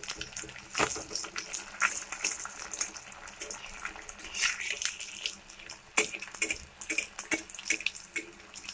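Battered snakehead fish steaks sizzling and crackling as they shallow-fry in hot oil in a metal kadai, with sharp clicks and scrapes of a metal spatula against the pan as the pieces are turned.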